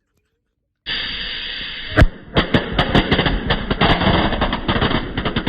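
Firecrackers going off: a loud hiss starts suddenly about a second in, one loud bang follows about a second later, then a rapid, irregular run of sharp cracks.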